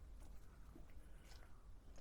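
Faint footsteps on a dirt mountain path, a few soft crunches spaced out over a low steady hum.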